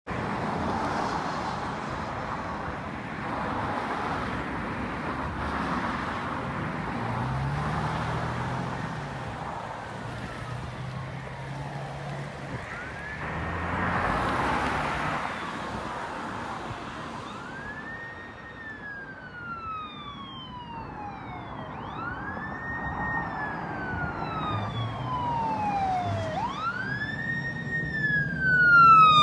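Traffic passing on the road, then an approaching airport crash-rescue fire truck's siren wailing. The siren rises and falls in slow sweeps about every four seconds and grows steadily louder as the truck nears.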